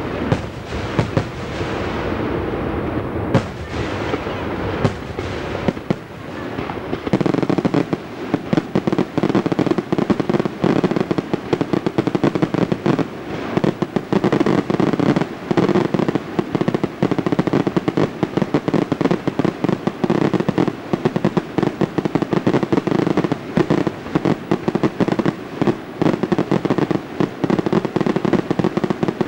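Aerial firework shells bursting in quick succession, a rapid run of bangs and crackles that thickens into a dense, near-continuous barrage about seven seconds in.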